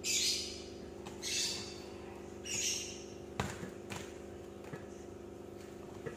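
Packing tape being peeled off a plastic-wrapped cardboard box: three short rips in the first three seconds, then a sharp tap and a few light knocks on the box. A steady low hum runs underneath.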